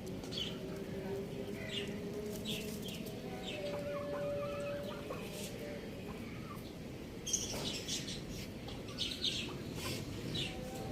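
Chickens clucking and calling, with many short, high chirps scattered throughout and a longer held call about four seconds in.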